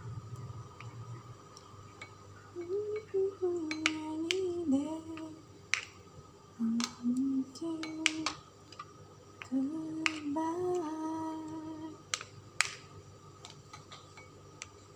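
Sharp clicks and taps of a metal spoon and a plastic sushi mold as rice is packed into it. Between them a woman hums three short phrases, one about three seconds in and the last near the two-thirds mark.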